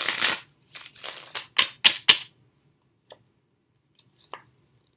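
A tarot deck shuffled by hand: rustling shuffles, then three sharp card snaps about two seconds in, followed by a couple of faint taps as a card is drawn.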